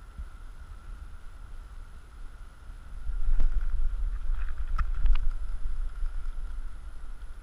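Wind buffeting the microphone as a low rumble, stronger from about three seconds in, with a few short clicks and knocks around the middle.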